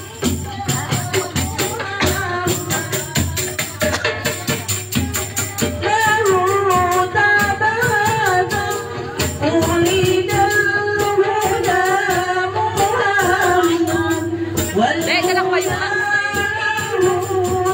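Live hadroh music: a fast, dense rhythm of hand-struck frame drums and jingling percussion, with female voices singing over it, the sung melody strongest from about six seconds in.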